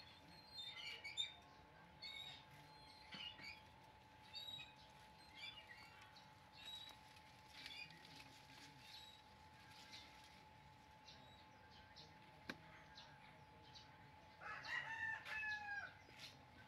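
Faint animal calls: short high chirps repeating every second or so, then a louder, longer call falling in pitch near the end.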